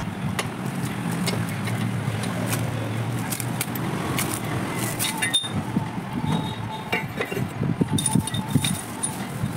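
Metal clinks and light knocks of a new steel centre stand for a Splendor Pro motorcycle being handled and fitted into its mounting on the frame, the clinks ringing more often near the end. A steady low hum sits under the first few seconds.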